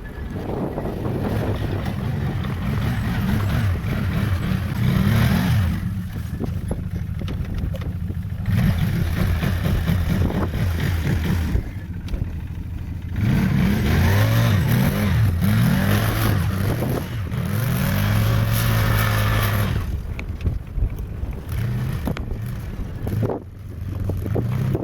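ATV engine running under way on a trail ride, repeatedly revving up and easing off, with the pitch climbing and falling and a few quieter stretches around six seconds in, twelve seconds in and near the end.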